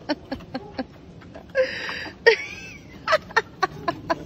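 A woman laughing in quick, breathy bursts, with a longer wheezing laugh about halfway through.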